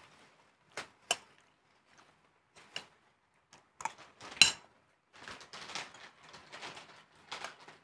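Scattered clicks and knocks of spoons and fingers against plates and bowls as people eat, the sharpest about four and a half seconds in, then a couple of seconds of soft continuous rustling.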